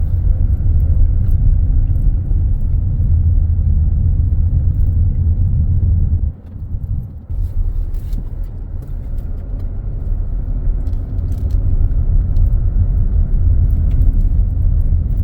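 A vehicle driving, heard as a loud, heavy low rumble that eases briefly about six seconds in and then comes back.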